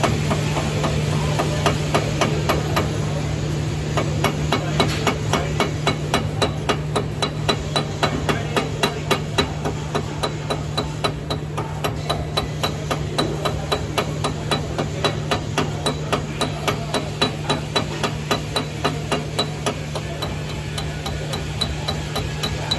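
Chipping hammer striking a slag-covered weld bead to knock the slag off: sharp metallic taps, a few at first, then a steady quick rhythm of about two to three a second from about four seconds in, over a steady low hum.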